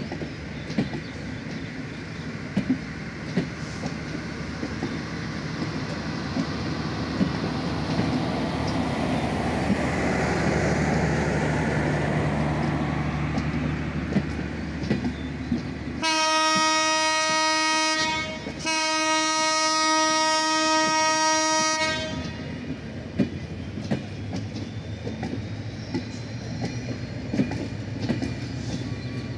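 Bangladesh Railway intercity passenger coaches rolling past close by, the wheels clicking over the rail joints. A train horn sounds two long blasts about two-thirds of the way through, the second a little longer than the first.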